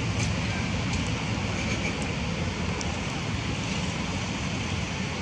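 Steady rushing wind noise on the microphone, with a low rumble and a few faint clicks.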